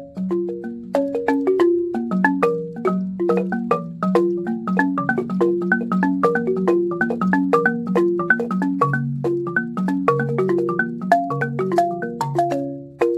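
Siamou balafon, a West African wooden-keyed xylophone, played with mallets: a quick, flowing run of struck notes, several a second, pausing briefly just after the start and again near the end.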